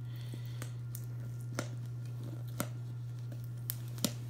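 A few sharp clicks and light crinkles as a heavily taped cardboard shipping box is worked open by hand, over a steady low hum.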